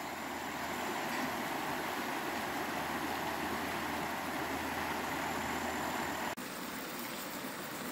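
River rapids rushing over rocks: a steady wash of water noise that drops a little quieter with an abrupt change about six seconds in.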